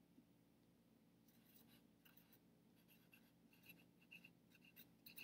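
Faint scratchy strokes of a felt-tip marker writing on paper held on a clipboard, starting about a second in and coming in short quick strokes as a word is written out.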